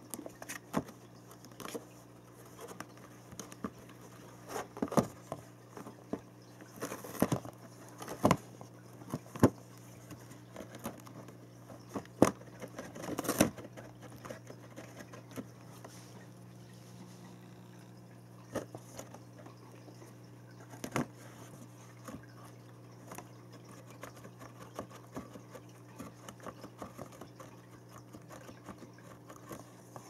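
Cat's paws tapping, batting and scraping on a cardboard box as a toy mouse is pushed up and down through holes in its lid: irregular knocks and scrapes, busiest in the first half, with a longer scrape about thirteen seconds in.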